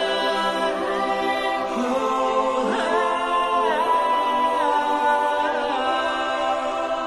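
Background music of layered, choir-like a cappella singing, with long held notes and slow glides in pitch.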